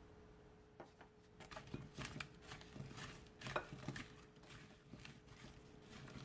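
A spatula tossing oiled, seasoned raw potato slices in a glass bowl: irregular soft scrapes, slaps and taps against the glass. They start about a second in and are heaviest near the middle.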